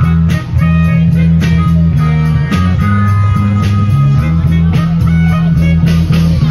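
Live band playing through PA speakers: a strong bass line under guitar and keyboard tones, with drums keeping a steady beat of about two hits a second.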